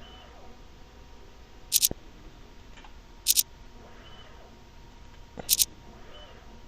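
Falcon CNC video measuring machine running a measurement program automatically: a faint steady hum, a short high-pitched double chirp every one and a half to two seconds, and a few soft clicks.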